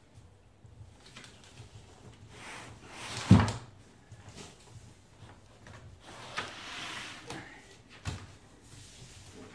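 Cardboard and packing foam rustling and scraping as a heavy 15-inch subwoofer is worked out of its shipping carton. There is one loud thump about three seconds in, and a lighter knock near the end.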